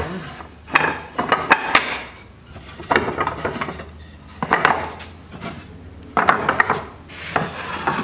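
Wooden hive top boards knocking and scraping against each other and the wooden hive box as they are lifted out and set down. The sound comes as several separate bursts of clatter.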